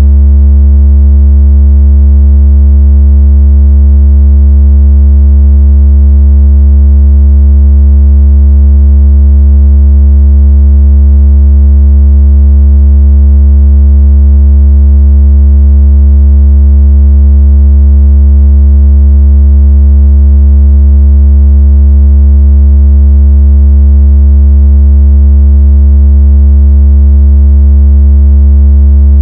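A deep, very loud electronic tone held perfectly steady, with no change in pitch or level. It is a synthetic speaker-cleaning tone, played to vibrate water out of a phone speaker.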